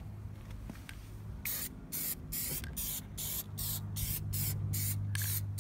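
Aerosol spray paint can sprayed in about a dozen short, even bursts of hiss, two or three a second, starting about a second and a half in, laying a first coat of dark paint on a fog light lens.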